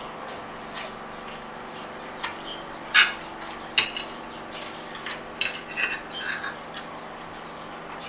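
Metal fork clinking and scraping against a ceramic plate while twirling spaghetti, with two sharp clinks about three and four seconds in, then lighter taps mixed with chewing.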